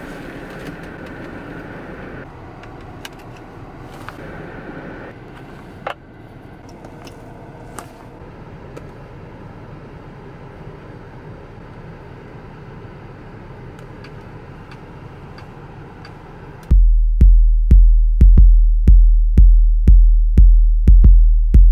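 A low, even background with scattered clicks, then, about 17 seconds in, a hip-hop beat made in LMMS starts loud: a deep bass hit about twice a second, each one decaying, under sharp ticks.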